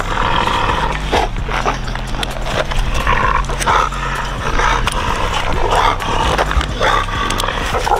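An excited dog barking in short bursts about once a second, with clicks and rustles from a weight vest's buckles and straps being fastened on it.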